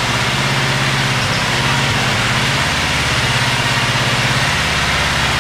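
Air-cooled two-cylinder Wisconsin gas engine running steadily, powering an antique Up-Right scissor lift as it drives slowly.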